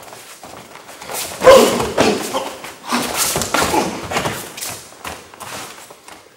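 Thuds and slaps of bodies, hands and bare feet on a padded mat as a kenpo self-defense technique is run at speed, ending with a man dropping onto the mat. The hits come in a quick cluster, loudest about a second and a half in.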